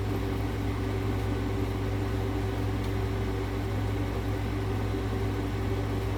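RV air conditioner running: a steady, even hum with a strong low drone and a few constant tones above it.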